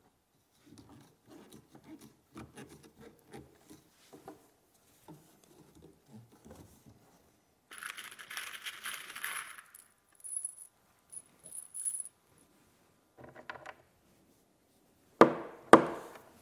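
Soft scattered clicks, then a handful of zinc-plated screws rattling and jingling in a small plastic parts box as a hand digs through them, in one long burst and two short ones. Two loud sharp knocks near the end.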